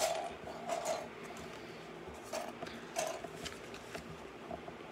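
Loose plastic LEGO pieces clicking and rattling as they are handled and sorted, scattered small clicks, with a few brief faint hum-like tones.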